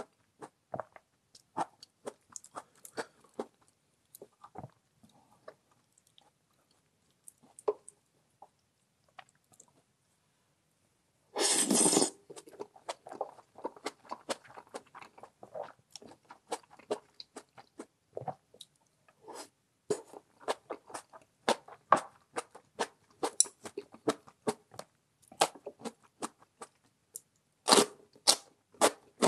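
Close-miked chewing with crisp crunching bites of food, in irregular clusters. It thins out to sparse clicks for several seconds, then a brief loud noisy burst about eleven seconds in, followed by steady chewing again.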